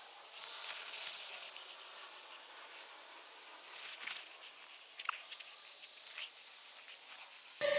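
Flextail Tiny Pump's small electric motor whining steadily as it inflates a sleeping pad, heard sped up with the footage so the whine sits very high and thin. A few faint handling knocks partway through.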